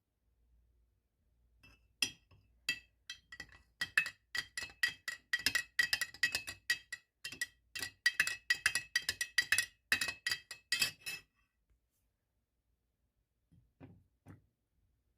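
A spoon stirring tea in a cup, clinking against its side: a quick run of ringing clinks, about three or four a second, for about nine seconds, then two softer knocks near the end.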